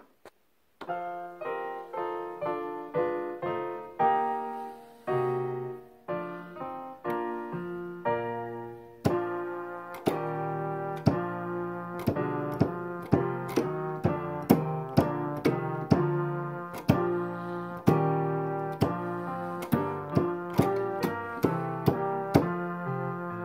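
Electronic keyboard with a piano voice playing a chordal accompaniment. The chords start about a second in, struck roughly once a second and each left to decay, then come quicker and steadier, about two a second, from about nine seconds in.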